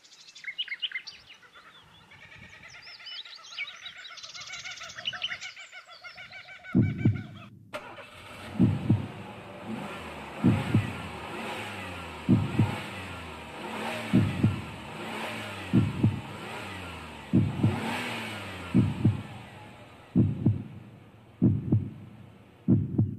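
Birds chirping and warbling for about the first six seconds. Then a heartbeat sound: paired low thumps repeating about every two seconds over a steady hum that swells and fades.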